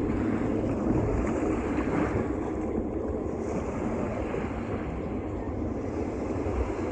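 Steady wind blowing on the microphone over a continuous rush of water or surf, during a tropical storm.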